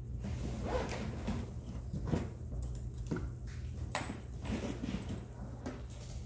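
Zipper on a hardshell Calpak mini carry-on suitcase being pulled open around its edge in a series of short, uneven pulls.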